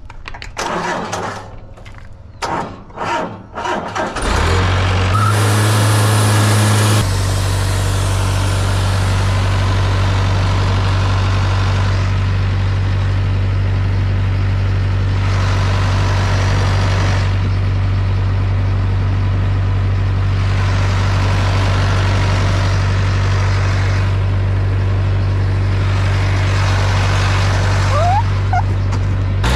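Wood-Mizer LT50 sawmill's engine throttling up about four seconds in, then running steadily at high speed.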